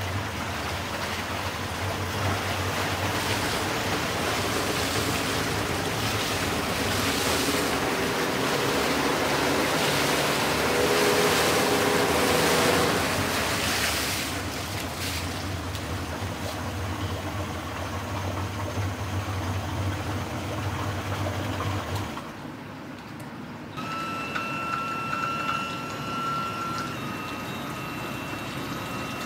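Tohatsu 50 three-cylinder two-stroke outboard running in a test tank, its propeller churning and splashing the water, loudest in the middle. The engine stops about two-thirds of the way through, leaving water running and dripping off the motor, with a few faint steady tones.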